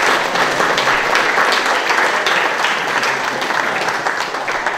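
Audience applauding steadily, beginning to ease off near the end.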